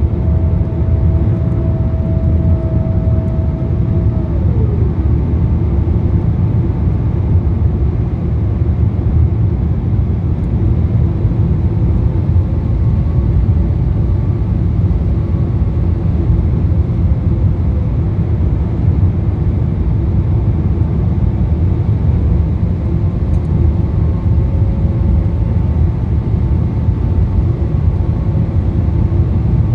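Inside the cabin of a Boeing 777-300ER on approach with flaps extended: a steady low rumble of airflow and its GE90 engines. About four seconds in, a steady whine slides down in pitch and fades.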